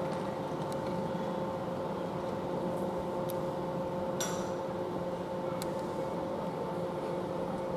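Steady electrical hum with two held, unchanging tones, from an electric train standing at the platform, with a few light clicks and knocks.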